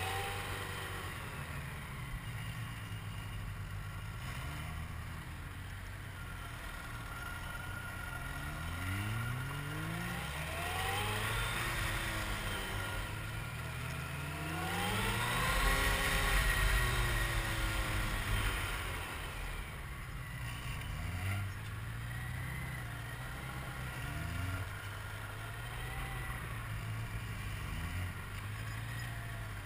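Motorcycle engine riding at low speed, heard from the rider's helmet camera, its revs rising and falling over and over as it weaves between cones, loudest with a long rise about fifteen seconds in.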